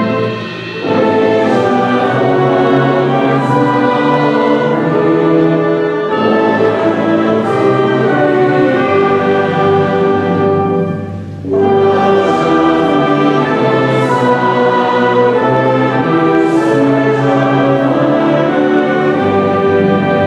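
A choir and orchestra performing a slow classical piece, with sustained chords. The music drops away briefly twice, about half a second in and again about eleven seconds in, between phrases.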